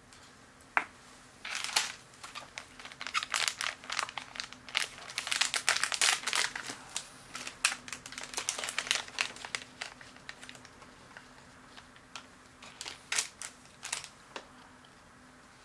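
Crinkling of a plastic snack packet holding dried shredded squid, handled and torn open in dense bursts for several seconds. A few more crinkles come near the end.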